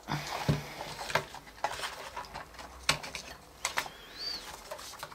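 Handling noise as a circuit board and its wiring are worked loose from the plastic housing of an Intempo Infusion iPod dock: scattered clicks and light knocks of plastic, with a short faint high squeak near the end.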